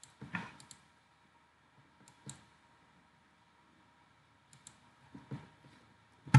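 Computer mouse clicking: scattered single clicks a few seconds apart, with a few soft knocks of the mouse on the desk, and the loudest click right at the end.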